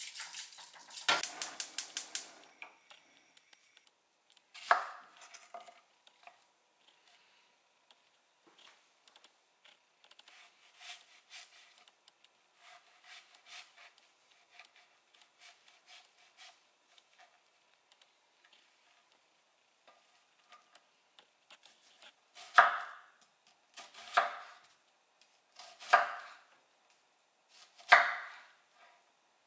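Chef's knife cutting an onion on a wooden cutting board: faint knife strokes through the middle, then four firm strikes of the blade on the board about two seconds apart near the end. At the start, a quick run of taps as rice is knocked from a metal mesh strainer into a saucepan.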